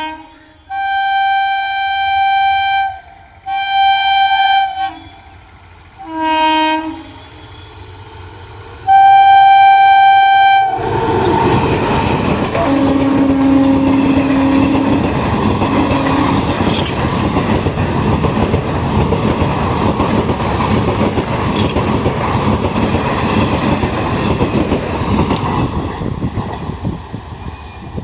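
Indian Railways train horn sounding four blasts, the last the loudest and longest, then a train passing at speed: a steady loud rumble with wheels clacking over rail joints. A lower-pitched horn sounds twice as it goes by, then the noise fades near the end.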